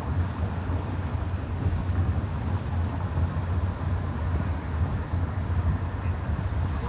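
A car driving at a steady speed: a steady low rumble of engine and tyre noise on the road.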